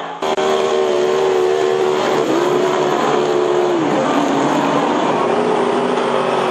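Superstock race car engines running hard on a dirt speedway oval, revving up and down as the cars race through a bend. One engine note drops about four seconds in.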